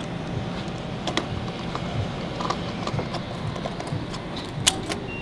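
Steady low hum of a gas-station fuel pump running during refuelling, with scattered light clicks and knocks.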